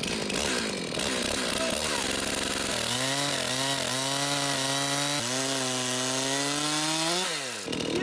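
Stihl chainsaw cutting through a wood burl at full throttle. The engine pitch dips a few times under load and then falls away near the end as the throttle is released once the slice is through.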